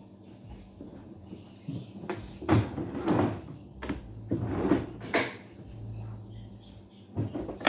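Five or so irregular knocks and clunks over about three seconds, over a faint low hum.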